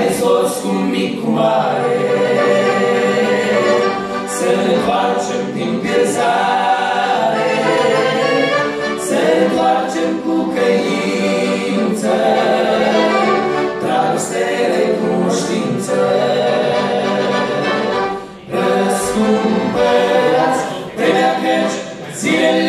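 Men's vocal group singing a Romanian gospel song in harmony, with accordion accompaniment.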